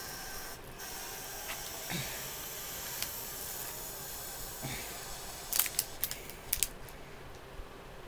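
Scattered sharp clicks and light handling noise from snack packaging being handled, with a quick run of several clicks a little over halfway through, over a steady hiss.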